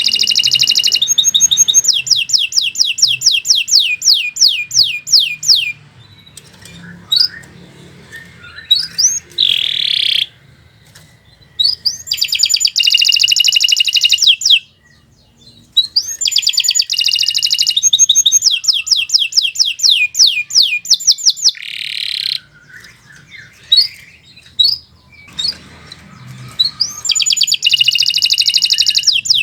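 Domestic canary singing long phrases of rapidly repeated high notes, four long trill runs broken by short pauses and a few single buzzy notes.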